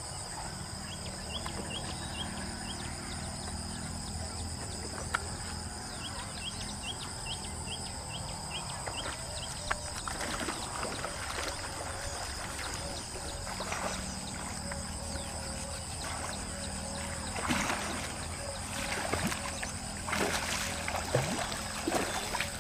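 Steady high-pitched drone of insects, with two runs of quick short chirps in the first half and a few short, louder noises near the end.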